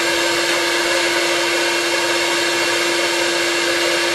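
Vacuum cleaner running steadily with a constant motor whine, sucking debris out of an outdoor air-conditioner condenser unit.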